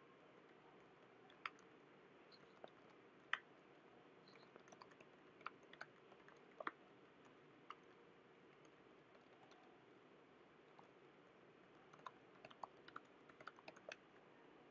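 Near silence: a faint steady hiss with scattered, irregular clicks of a computer keyboard, coming in a quick cluster near the end.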